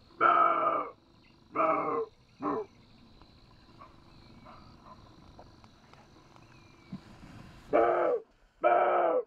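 Roe deer buck barking: three barks in the first few seconds, the third short, then two more near the end.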